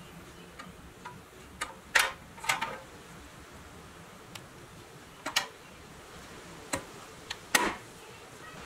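Light metallic clicks and knocks, irregular, as the painted pressed-steel bed of a 1962 Tonka toy pickup is handled and seated against the cab and chassis. The loudest knocks come about two seconds in and near the end.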